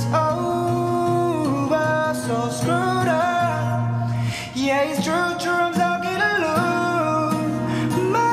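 A song: a man singing a slow melody over acoustic guitar and a steady low bass note.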